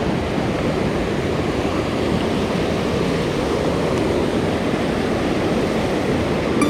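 Mountain stream running after rain: a steady rush of water.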